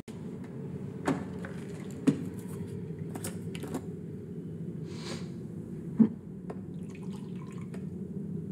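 Clicks of a vodka bottle's cap being twisted off and handled, with a brief pour of liquid about five seconds in, over a low steady hum.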